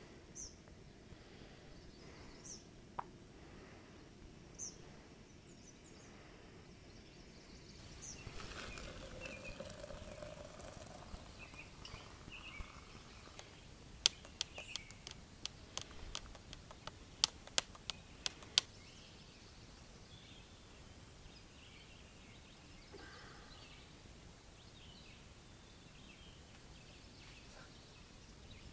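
Scattered bird chirps over quiet outdoor ambience. About halfway through, a spoon stirring a mug of coffee clinks sharply against its side about a dozen times over some four seconds.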